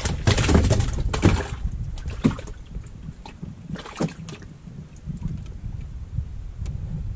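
Wind on the microphone and water sloshing around a small wooden fishing boat. A loud rush of noise in the first second and a half gives way to a low rumble with a few light knocks.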